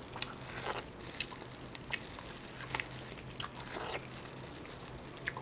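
Small irregular clicks and crackles of steamed king crab shell being picked apart with plastic-gloved fingers, over a faint steady low hum.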